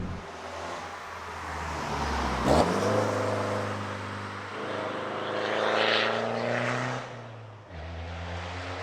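Straight-piped BMW 320d four-cylinder turbo diesel (DPF deleted) pulling under acceleration, its exhaust note rising steadily in pitch after a sharp knock about two and a half seconds in. Near the end it drops off suddenly and settles into a steady lower drone.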